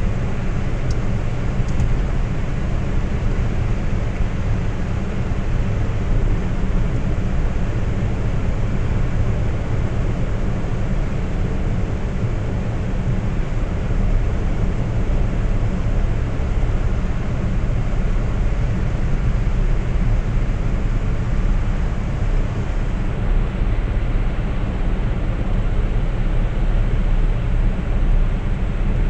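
Steady road and engine noise inside a car's cabin while driving on a motorway: a constant low rumble with no change in pace.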